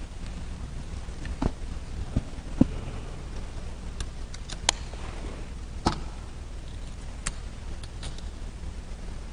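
A low steady hum with about nine small, separate clicks and knocks scattered through it, like objects being handled in a quiet church.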